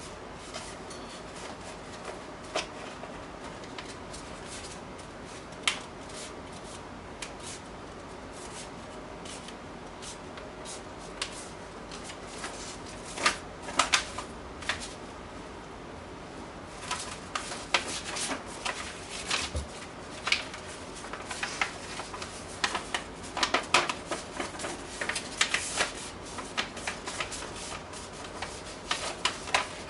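A sheet of paper being folded and creased by hand: crisp rustles and crackles, sparse at first and coming thick and fast in the second half.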